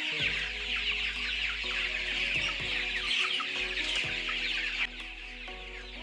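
A large flock of broiler chickens peeping and cheeping in a dense, continuous chorus of short high chirps. The chorus drops suddenly quieter about five seconds in.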